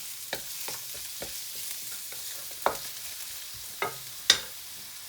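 Chopped onion frying in hot oil with a steady sizzle, stirred with a utensil that clicks and knocks against the pan several times, most sharply a little past four seconds in.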